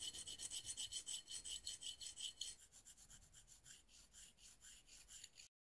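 Steel hex key being rubbed back and forth against a hand file in quick short strokes, about five a second: metal scraping on hardened steel to grind a flat for a hardness measurement. About halfway through the strokes turn quieter and higher, and the sound cuts off suddenly near the end.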